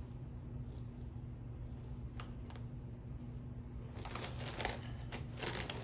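Cheetos Snowflakes snack bag crinkling as a hand rummages inside it, in a dense crackly run from about four seconds in, after a couple of faint clicks about two seconds in.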